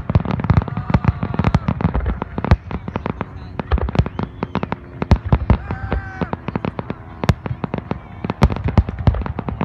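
Aerial fireworks display: a rapid, continuous barrage of shell bursts and crackle, several bangs a second with no break.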